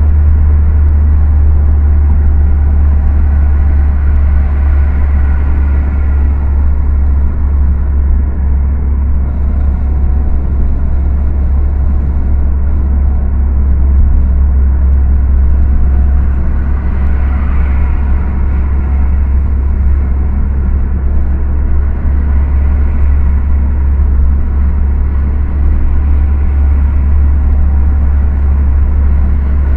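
Steady low rumble of a car driving along a highway, heard from inside the cabin: engine and road noise.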